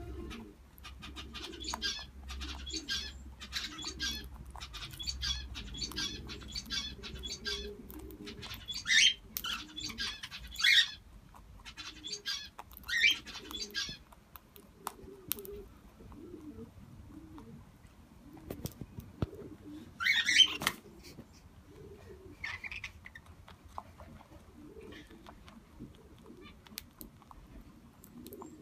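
Aviary birds, a cockatiel among them, chirping in quick runs, with a few sharp rising whistles and low cooing calls throughout.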